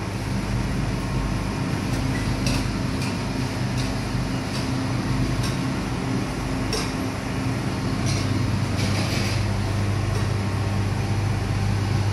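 Steady low machine hum, with light clicks and clinks scattered through it.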